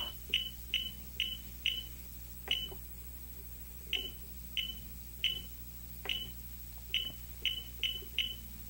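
Keypad of a Minnich Auto Vibe paving-vibrator monitor beeping as its arrow buttons are pressed: about fourteen short, high beeps at uneven spacing, each with a faint click, one per key press while stepping through letters on the on-screen keyboard.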